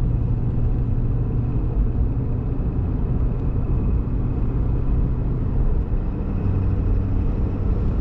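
Pickup truck's engine and road noise heard from inside the cab at highway speed while towing a cargo trailer: a steady low rumble. About six seconds in, the engine hum drops slightly in pitch.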